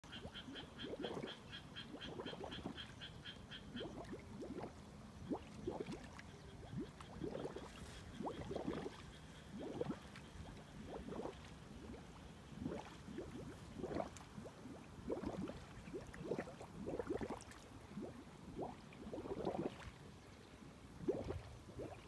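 Frogs croaking, short low calls repeating every second or so. A fast, high-pitched pulsed trill runs over them for the first four seconds.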